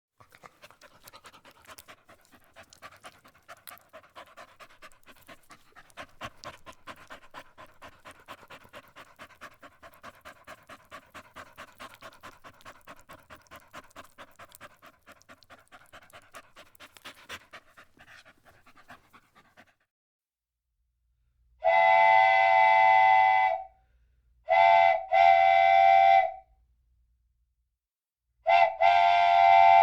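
A dog panting in quick, even breaths for about twenty seconds. Then a train whistle blows loud blasts: a long one, a short one, another long one, and a last long blast near the end.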